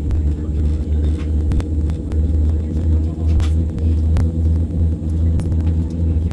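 Steady low rumble inside the cabin of a Boeing 787 airliner on the ground, engines running as it rolls slowly, with a couple of light clicks.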